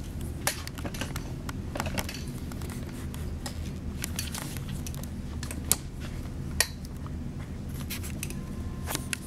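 Scattered small clicks and knocks of a camera mount being handled as the camera is turned to point down at a table, with two louder clicks a little past the middle, over a steady low hum.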